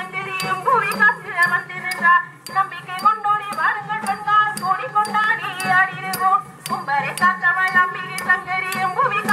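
Live Tamil devotional folk singing by women's voices, kept to a steady beat by small brass hand cymbals and a drum accompanying the dance.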